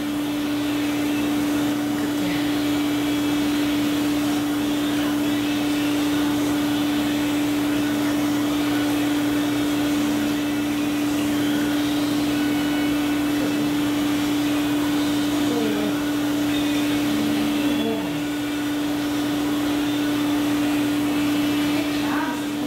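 Hydrotherapy pool's pump motor running with a steady hum over a continuous rush of moving water.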